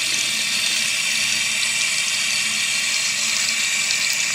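Bathroom sink tap running steadily, its stream splashing over hands held under it and into the basin.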